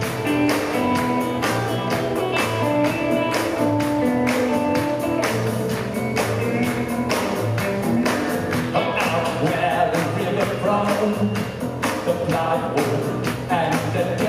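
A live rock band playing: regular drum beats under electric guitar and held instrument notes, with a male lead vocal coming in about nine seconds in.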